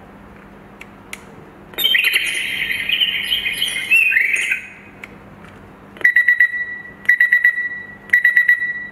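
Buffbee clock radio's built-in alarm tones previewed through its speaker as the Alarm Sounds switch is slid: two small switch clicks, then the bird-chirping tone for about three seconds. Near the end the beep tone plays as three bursts of rapid beeps about a second apart.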